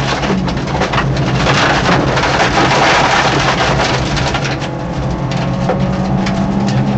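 Peugeot 205 1.9 rally car's four-cylinder engine running at fairly steady revs, heard from inside the cabin under a dense hiss with many sharp ticks and rattles through it.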